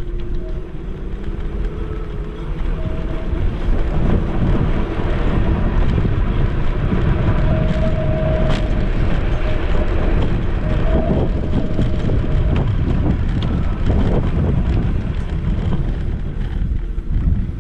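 Wind buffeting the microphone of a camera mounted on a moving Caroma P5 electric scooter, with the scooter's faint electric motor whine sliding up and down in pitch as its speed changes.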